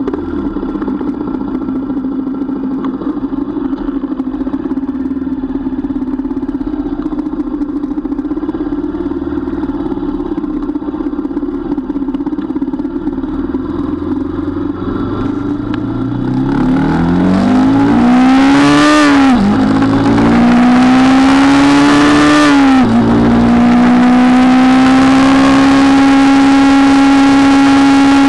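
Motorcycle engine running steadily at low speed, then revving up hard through the gears about two-thirds of the way in, the pitch rising and dropping at two upshifts, before it settles into a steady high-revving cruise with rising wind rush.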